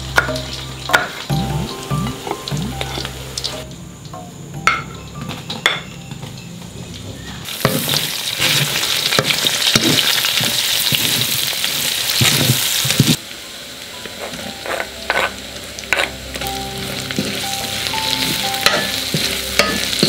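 A knife chopping chillies on a wooden board with a few sharp taps, then onions and prawns sizzling in hot oil in a wok while a spatula stirs and scrapes. The sizzle is loudest for several seconds in the middle, then settles to a quieter sizzle broken by the clicks of the spatula. Soft background music runs underneath.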